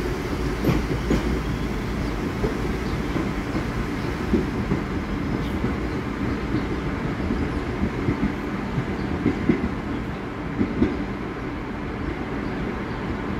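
R62A subway train pulling away along the track, its wheels clicking irregularly over the rail joints, the running noise slowly fading as it goes.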